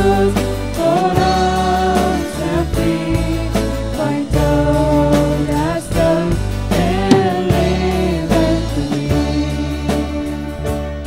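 Christian worship song: a voice singing a melody over a band, with bass notes and a steady beat.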